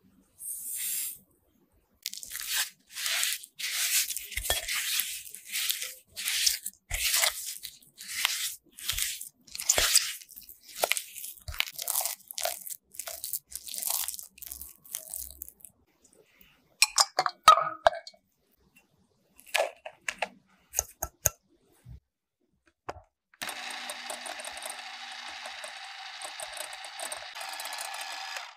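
A spatula scraping and beating cream cheese and sugar against the sides of a glass bowl in quick repeated strokes. After that come a few sharp knocks and taps, and then an electric hand mixer runs steadily for the last five seconds, its beaters whipping cream.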